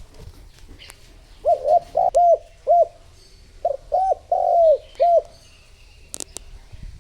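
Spotted dove cooing, two phrases of several rounded low coos about a second apart: the lure call used to draw in wild doves.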